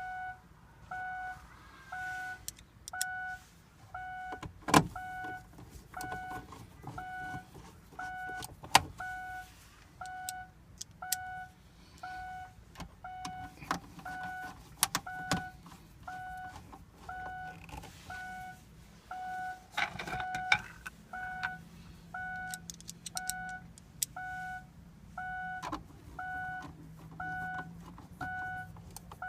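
A car's dashboard warning chime beeping steadily about once a second, with scattered sharp clicks and knocks from dashboard trim and screws being handled.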